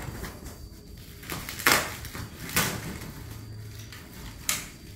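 Cardboard box and its plastic packing being handled while unpacking: a low rustle with three sharp swishes or scrapes about one and a half, two and a half and four and a half seconds in.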